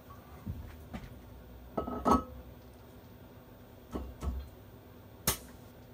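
Aluminium pallet plate being set onto a CNC mill's pallet receiver: a few separate metallic knocks and clinks. The loudest comes about two seconds in and rings briefly, and a sharp click follows near the end.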